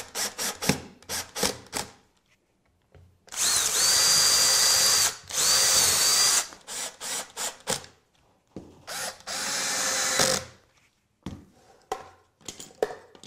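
Cordless drill spinning up in three runs of one to two seconds each, the first with a rising whine, boring pilot holes into small bubinga hardwood cleats. Clicks and taps from handling the drill and parts come before and between the runs.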